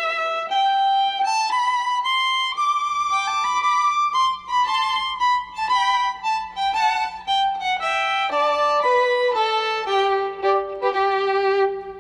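Background music: a violin playing a melody, one note after another with vibrato.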